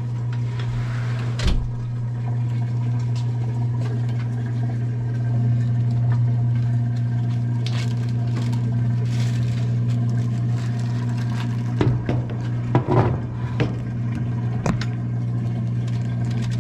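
Whirlpool washing machine draining its water, a steady low electric hum from its pump motor. A knock about a second and a half in, and a few clatters and knocks later on.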